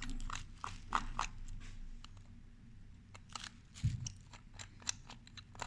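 Irregular small clicks and crackles from handling a smartphone's plastic parts and tools during disassembly, with a soft low thump about four seconds in.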